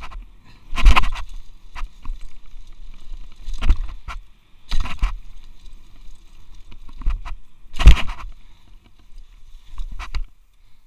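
Mountain bike descending a rough dirt trail at speed, heard from a helmet-mounted camera: steady wind rush and rattling, broken by sudden loud jolts as the bike hits bumps, four of them much louder than the rest, about a second in, near four and five seconds, and near eight seconds.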